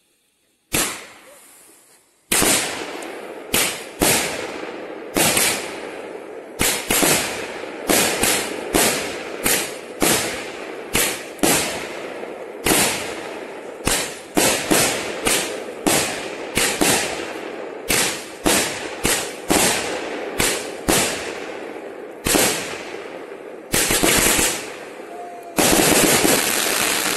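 A fireworks battery (cake) firing shot after shot. There is one sharp bang about a second in, then from about two seconds a steady run of sharp bangs, one or two a second, each trailing off in a short echo. The bangs come thicker and louder near the end.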